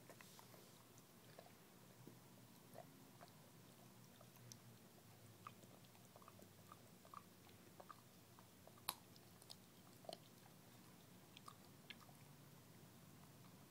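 Faint, scattered wet clicks and smacks of a dog chewing a longan, working the flesh off around the seed, with one sharper click about nine seconds in.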